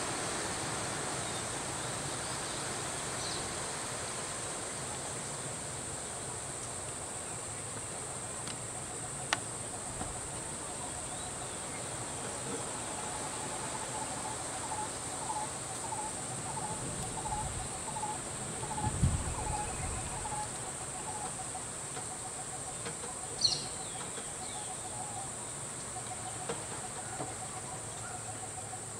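Steady high-pitched insect drone, with a bird calling about ten short repeated notes, roughly two a second, midway through and a brief high chirp later. A sharp click and a low thump stand out once each.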